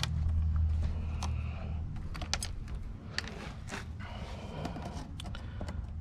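Scattered small clicks and taps of hand tools and metal or plastic parts being handled while scrap electronics are stripped apart. A low hum runs under the first two seconds, then stops.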